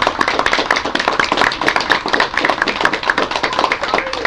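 Crowd applauding, with many hands clapping densely and steadily.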